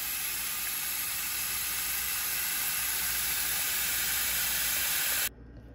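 Kitchen faucet running a steady stream of water into a stainless steel pot holding a fish head, filling the pot; the tap is shut off suddenly about five seconds in.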